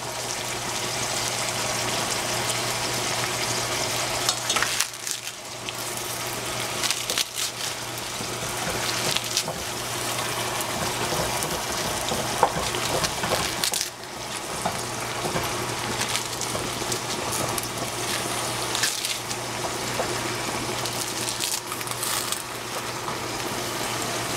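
Collard greens sizzling in hot oil in a stainless steel saucepan, a steady frying hiss with occasional clicks of wooden chopsticks against the pan as the leaves are tossed.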